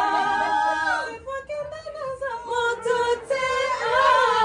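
Women's voices singing a melody with long held notes, dropping quieter for a couple of seconds in the middle before swelling again near the end.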